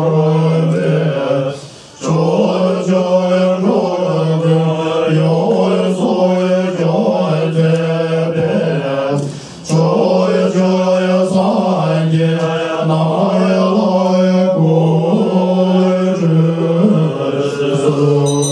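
A mantra chanted in repeating phrases over a steady low held note, breaking off briefly twice.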